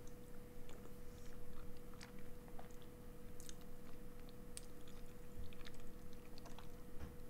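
A person chewing a mouthful of spaghetti in tomato sauce, with small mouth clicks scattered throughout, over a faint steady hum.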